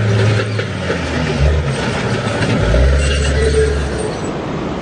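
A motor vehicle's engine running, with a low drone that shifts lower in pitch a couple of times, over steady road and wind noise.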